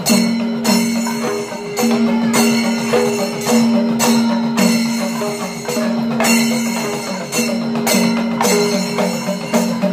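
Kerala temple percussion ensemble playing the kalasakottu, the closing climax of the performance: dense drumming with metal cymbals ringing, strong beats about twice a second, over a held droning note.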